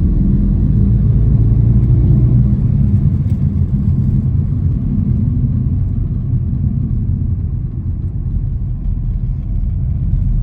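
Cabin sound of a 2011 Porsche Cayenne Turbo (958) driving with the windows up: a low, steady drone from its twin-turbo V8 through a SOUL exhaust with the secondary cats deleted, mixed with road rumble. The exhaust is only faintly heard inside, a little deeper at most.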